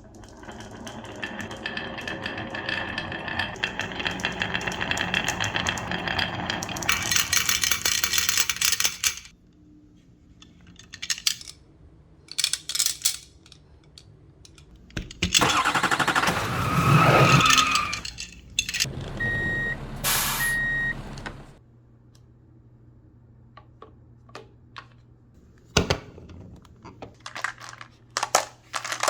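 Marbles rolling and rattling along a wooden marble run, ending in a bright clattering burst, followed by scattered clicks of marbles on wood. Midway comes a louder sound that falls in pitch, then two short electronic beeps.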